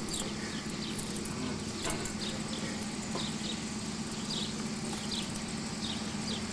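An animal chirping repeatedly in short, high, falling notes, roughly two a second, over a steady low hum.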